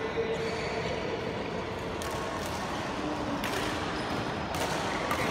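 Large indoor sports hall between badminton rallies: a steady hiss of room noise with a few short soft knocks, about two, three and a half and four and a half seconds in.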